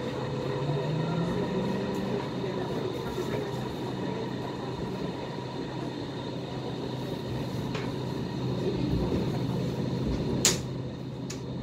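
Hong Kong Light Rail car running along the track, heard from inside the car: a steady hum and rumble of motors and wheels, with a low tone rising about a second in. A single sharp click near the end.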